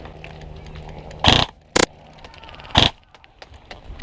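Airsoft gunfire: three loud, sharp shots, the first two half a second apart and the third a second later, over a low steady hum that stops about two seconds in.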